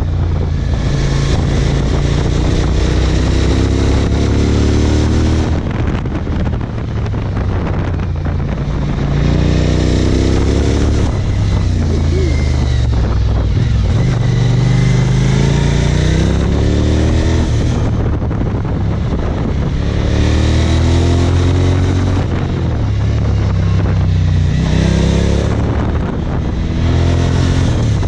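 Suzuki DL1000 V-Strom's V-twin engine heard from the rider's seat while cornering, its note climbing and falling several times as the throttle is opened out of bends and closed into them. Wind buffets the microphone throughout.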